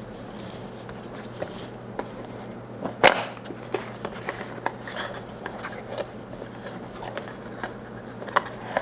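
Hands handling the cardboard and plastic packaging of a small product box: scattered clicks, taps and light rustles, with one sharp click about three seconds in.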